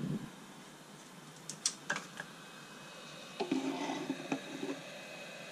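Hot air soldering gun being handled and set back into its stand: a low thump, a few sharp clicks, then a short clattering rattle with some ringing, over a steady faint hiss.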